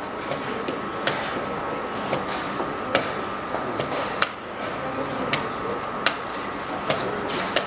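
Wooden chess pieces clacking down on a wooden board and hands slapping the buttons of a digital chess clock during a fast blitz game, about half a dozen sharp knocks a second or two apart.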